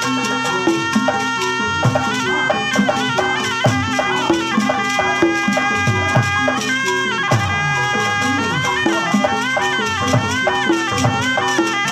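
Sundanese tarompet, a double-reed shawm, playing a nasal, ornamented melody with bent notes over kendang drums, whose strokes beat a steady rhythm with pitch-bending low tones; kendang pencak music for the bandrong martial art.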